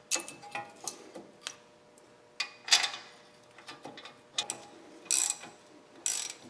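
Metal clinks and clanks as a brake caliper is set over the front rotor and handled into place, then short runs of ratchet clicking near the end as a caliper bolt is run in.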